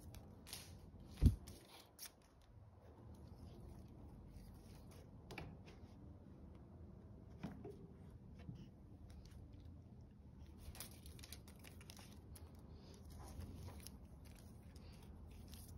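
Faint scratching, rustling and clicking of a cat pawing at and biting a tape measure's tape on a floor mat, with one dull thump about a second in and a denser patch of rustling later on.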